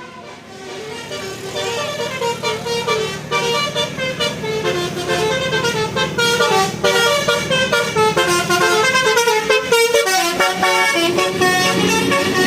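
Tour bus's multi-tone 'basuri' telolet horn playing a fast tune of short stepped notes, growing louder after the first couple of seconds.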